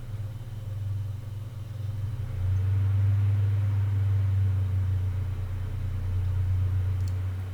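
Graphics card cooling fans running with a steady low hum that gets louder about two seconds in.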